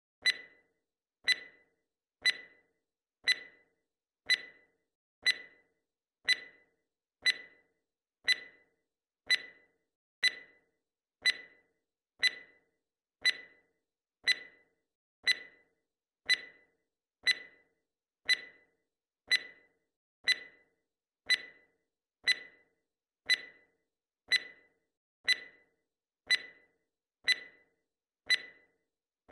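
Timer tick sound effect: one short, sharp tick every second, keeping time with the counter.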